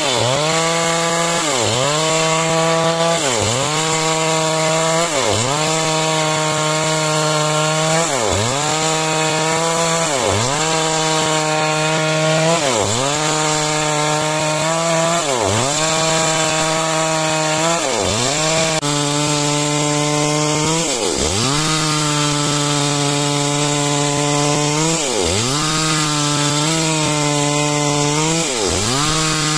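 Two-stroke chainsaw cutting through timber at high revs, its engine pitch dipping sharply and recovering about every two to three seconds as the chain loads up in the cut.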